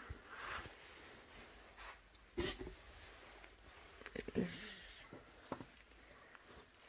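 Faint rustling and handling noises of a dress being turned over and examined, with a few soft knocks and clicks.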